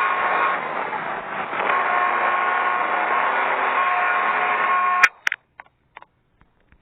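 Wobbly ceiling fan running with a steady whirring hum and a few steady whining tones, which stops abruptly about five seconds in; a few sharp clicks follow.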